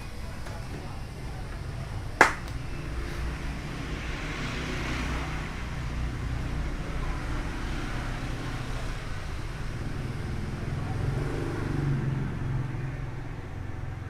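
One sharp plastic snap about two seconds in, typical of a TV bezel latch popping free as it is pried. It sits over a steady low rumble, which swells twice, like passing traffic.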